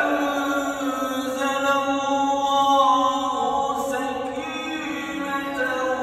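Qur'an recitation (tilawah): one voice chanting in long, held, ornamented notes that slide slowly in pitch.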